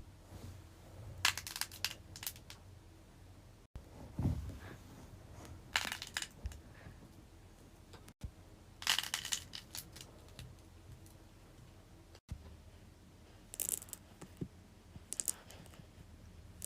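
Fidget toys being handled: short bursts of clicking, tapping and plastic crinkling every few seconds, broken off by abrupt cuts.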